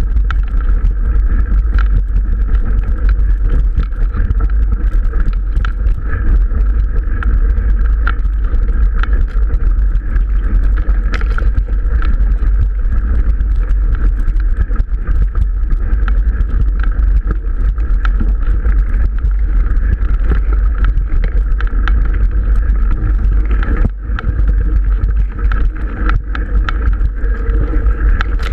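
Mountain bike ridden along a rough dirt track: a continuous loud rumble of wind and vibration, with constant rattling clicks from the bike going over the uneven ground.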